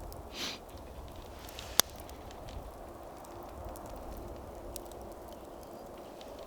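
Campfire crackling with scattered small pops over a steady low hiss, and one sharp, loud crack about two seconds in.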